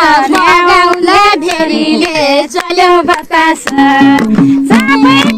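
A high female voice singing a Nepali folk song with ornamented, sliding notes, as dance music for a local dance. About two thirds of the way in, a steady instrumental accompaniment joins under the singing.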